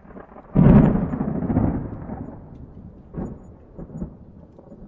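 Thunderstorm: a loud thunderclap about half a second in rumbles away over a couple of seconds, followed by two fainter rolls of thunder, with rain.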